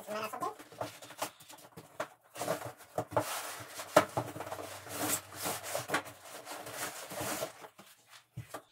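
Cardboard cartons scraping and sliding against each other as flat boxes are pulled out of an outer box and lifted, with irregular knocks of cardboard and a sharp knock about four seconds in.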